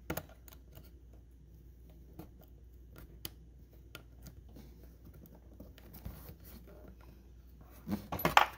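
Scattered light clicks and scratches of hands working plastic clips and parts into place, with a denser, louder run of clicks near the end.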